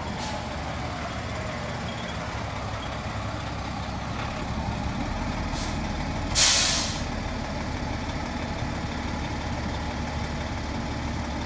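Fire engine's diesel engine running steadily as it pulls up and stops, with its siren winding down in the first second or so. A few short air-brake hisses come before a loud air-brake hiss about six seconds in.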